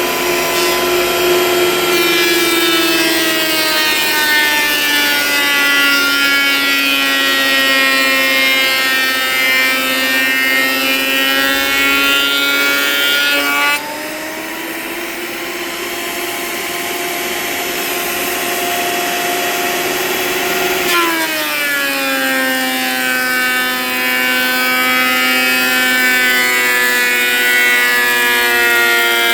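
Electric hand planer running and cutting through layered old paint on wood trim: a steady motor whine whose pitch sags and recovers with the load, shifting abruptly about fourteen seconds in and again about twenty-one seconds in.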